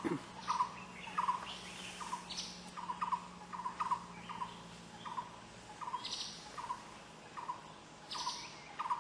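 A barbet calling: a short hollow two- or three-part note repeated steadily, about three times every two seconds, with a few higher chirps from other birds.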